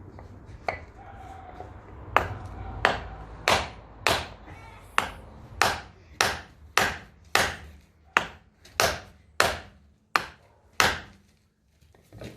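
Hammer blows driving a new front wheel hub bearing into its housing: about fifteen sharp strikes, roughly one every 0.6 seconds, each ringing briefly.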